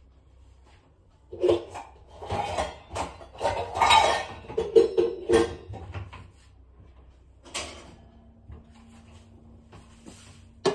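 Kitchen clatter of pots, utensils and a cupboard door being handled while a pan is got out for heating water, then a knock and a faint steady hum, ending with a sharp click.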